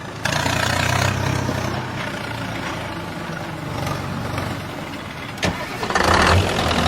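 An engine running with a steady low hum. There is a sharp click about five and a half seconds in, and the sound grows louder near the end.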